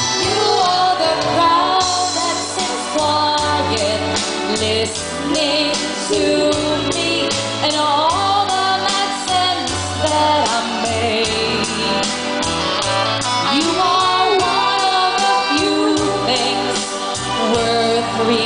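Live band music: a female singer over electronic keyboards and a steady drum beat.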